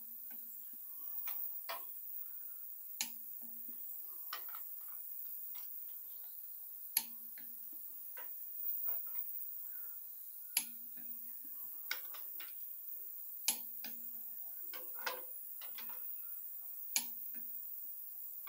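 Torque wrench clicking about seven times, roughly every one and a half to four seconds, as the cylinder head bolts of a Ford 302 V8 are pulled to 50 foot-pounds in the first torque pass. Softer ticks and rustling come between the clicks.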